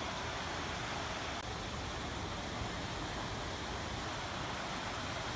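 Steady, even rushing background noise with no distinct events in it.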